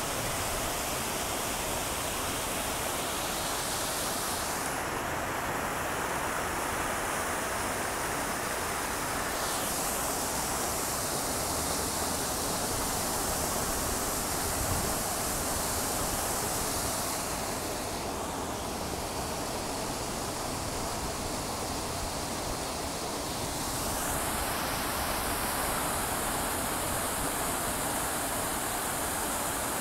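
Plaza fountain's row of water jets splashing down into its pool: a steady rush of falling water whose tone shifts a few times as the jets change, a little softer in the middle.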